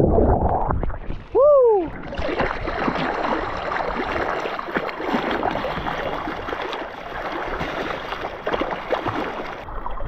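Hands paddling a surfboard through the water: steady splashing and gurgling from the arm strokes right at the water's surface. About a second and a half in, a brief loud pitched sound, rising then falling, cuts across the splashing.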